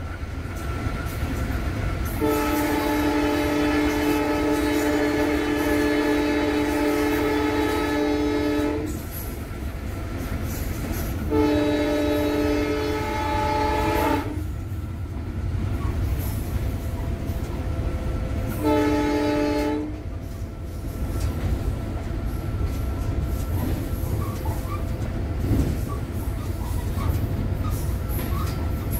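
EMD GT46PAC (WDP4) diesel locomotive's air horn, heard from inside the cab: one long blast of about six seconds, a shorter blast of about three seconds, then a brief one-second toot. Underneath runs the steady rumble of the locomotive at speed, with wheels clattering over the rail joints.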